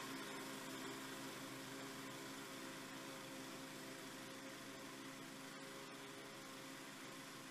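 Faint, steady engine hum of a Toro TimeMaster walk-behind lawn mower cutting tall, thick grass, slowly fading as the mower moves away.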